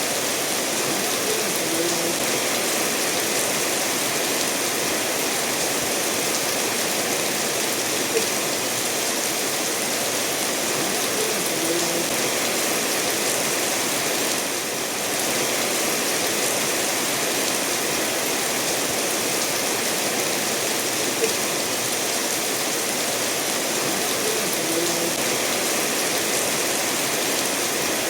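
Steady rainfall over a stream rushing between stones, an even wash of water noise, with a couple of brief louder drips.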